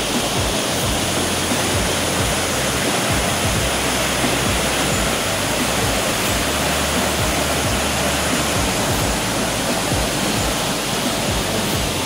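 Large waterfall in heavy flow: a steady, even rush of falling water.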